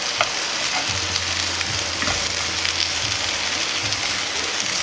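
Spring cabbage and carrot sizzling steadily in a frying pan over low heat, stirred with wooden chopsticks that give a few light clicks against the pan.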